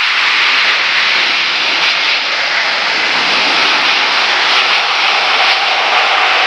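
Airbus A380's four jet engines, a loud, steady rushing as the airliner rolls along the runway just after touchdown.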